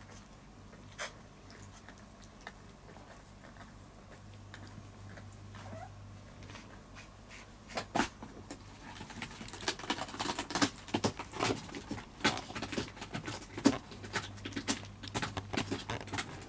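Kitten eating dry kibble from a paper bowl. It is quiet at first, then from about halfway there is rapid crunching and chewing, many sharp clicks. A low steady hum runs underneath.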